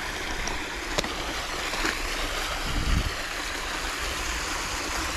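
Steady rushing noise of flowing river water, with a light click about a second in.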